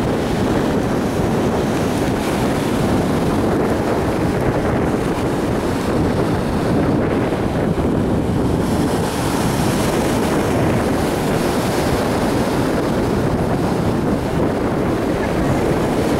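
Steady wind buffeting the microphone, mixed with ocean surf washing against granite shore rocks.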